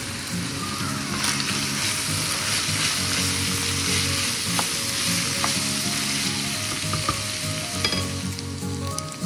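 Ground beef and sliced hot dogs sizzling steadily as they fry in a skillet, stirred with a wooden spoon that scrapes and clicks against the pan a few times. Music plays underneath.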